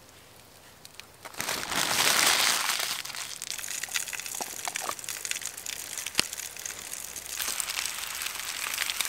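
Paper wrapper crumpled and scrunched, loudest about a second and a half in, then softer rustling with scattered small clicks.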